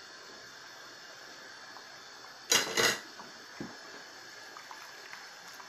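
A pot of potato curry heating on the stove with a steady faint hiss; about two and a half seconds in, two quick loud metallic clatters of cookware come close together, then a small click.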